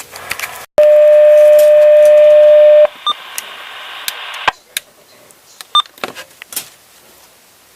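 Uniden scanner receiving a county dispatch alert: one loud steady alert tone held for about two seconds, then radio hiss that cuts off about four and a half seconds in, followed by scattered clicks and a few short beeps.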